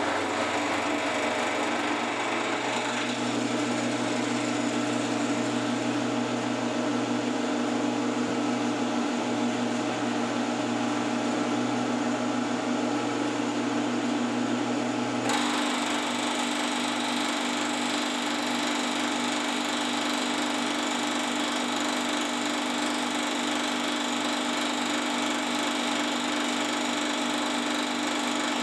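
Small bench milling machine (mill-drill) running steadily at about 1400 rpm, its rotating milling cutter taking a conventional-milling cut across an aluminium part: a steady motor-and-gear hum. The sound changes abruptly about halfway through.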